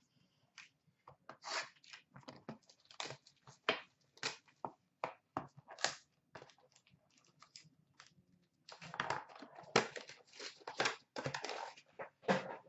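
A 2015-16 Upper Deck Contours hockey card box being opened and its packs handled: a run of short sharp crinkles, clicks and small tears of cardboard and packaging, thickening into denser crinkling from about nine seconds in.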